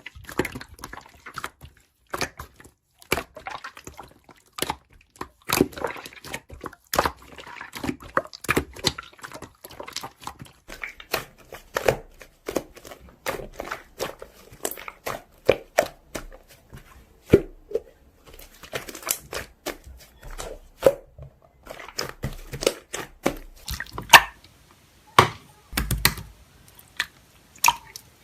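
Slime being squished and stretched by hand, giving dense, irregular sticky clicks and wet pops, several a second.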